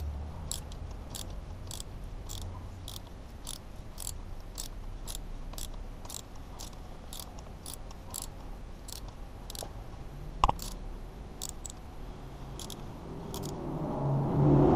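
Small ratchet wrench clicking in short strokes, about two ticks a second, as it turns a thread-repair tap into an aluminium cylinder head. One sharper knock about ten seconds in, and cloth rustling near the end.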